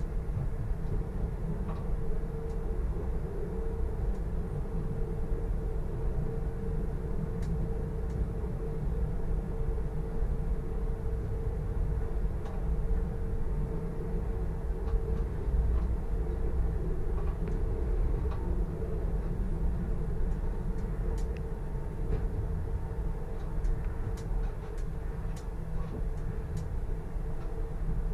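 Solaris Tramino S105p tram running steadily along the track at about 30 km/h, heard from the driver's cab: a continuous low rumble of wheels on rail with a steady mid-pitched hum from the drive, and scattered light ticks.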